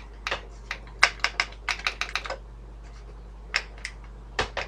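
Front-panel push buttons of a Sony audio timer clicking as they are pressed. A quick run of about ten clicks comes in the first two and a half seconds, then three more spaced-out clicks near the end.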